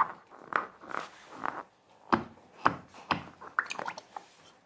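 Fingers rubbing and squeezing a filled latex balloon: a string of short rubbery rubs and squeaks about twice a second, with a few sharper taps around the middle.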